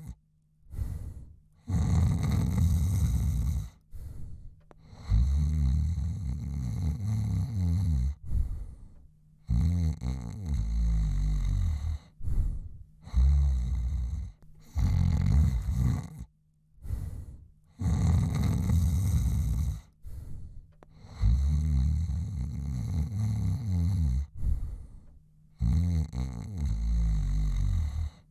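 A man snoring loudly and rhythmically, one rough, rasping snore every couple of seconds with short silent breaks between breaths.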